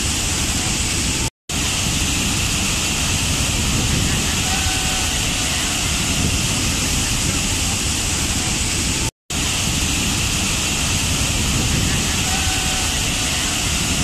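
Large waterfall crashing onto rocks: a loud, steady rush of water. Twice, about a second and a half in and about nine seconds in, the sound drops out to silence for a split second.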